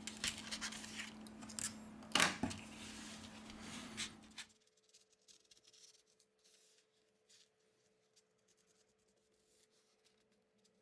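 Thin plastic opening card scraping and sliding under a phone's glued back cover, working through the adhesive, with a few light clicks. It cuts off about four and a half seconds in.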